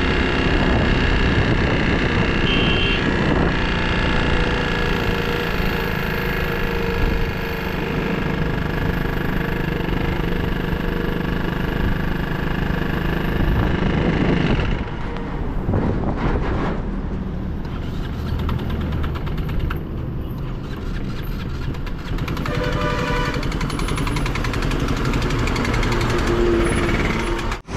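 KTM RC 200 single-cylinder engine running with a very bad noise from the engine, the sign of damage from running on low oil pressure. The sound changes about halfway through and carries on as steady vehicle noise.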